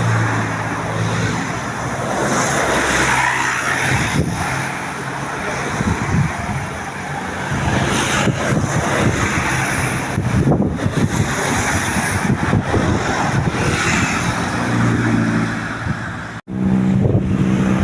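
Road traffic passing close by: vehicle engines and tyre noise in a continuous loud rush, with a steady low engine hum near the start and near the end. The sound cuts out for an instant near the end.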